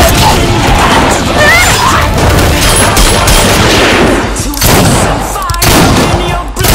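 Bursts of gunfire from pistols and rifles, many shots in quick succession, mixed loud over a song.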